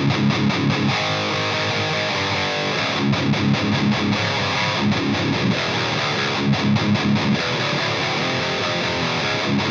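High-gain distorted electric guitar played through an EVH 5150 III LBX amp head: a fast rhythmic chugging riff on the low strings, with a short run of ringing higher notes about a second in.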